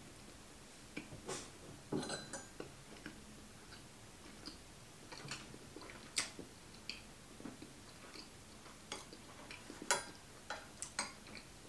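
Faint chewing of soft, jam-filled gingerbread with the mouth closed, with scattered light clicks of a teaspoon against a porcelain teacup and saucer, the sharpest about six and ten seconds in.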